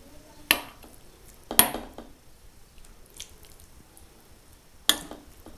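A utensil knocking sharply against a glass jar and bowl as wet marinated zucchini-and-carrot salad is spooned into the jar, with soft wet squelches. There are three main knocks, the second followed by a brief wet scrape.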